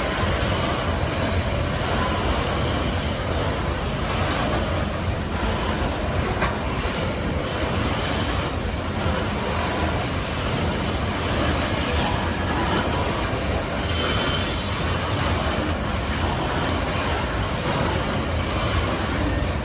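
BNSF coal train's hopper cars rolling past, a steady rumble of wheels on rail with clacking, and short bursts of high wheel squeal now and then.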